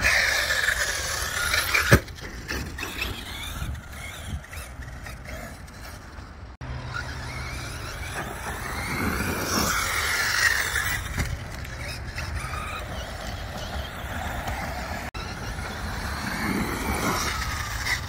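Brushless electric motors of 6S Arrma Kraton RC trucks whining, the pitch rising and falling with the throttle in several runs. About two seconds in comes a sharp thump, the loudest sound.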